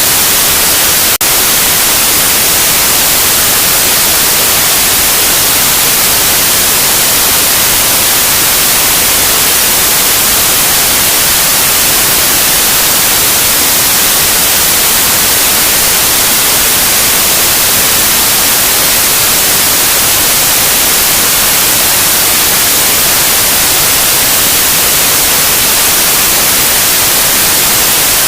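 Loud, steady white noise: an even, full-range hiss with no tones or rhythm, and a momentary dip about a second in.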